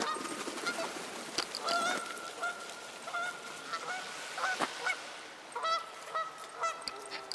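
Geese honking: a run of short, repeated calls, several close together.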